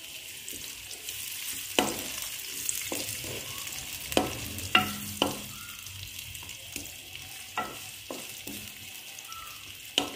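Sliced onions sizzling in hot ghee in a metal pot, stirred with a wooden spoon that knocks against the pot every second or two.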